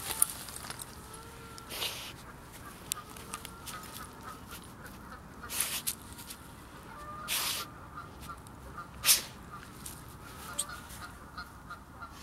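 Husky digging and snuffling into a hole in soil and dead leaves, with several short, loud bursts of scraping and sniffing a couple of seconds apart. Faint bird calls repeat in the background.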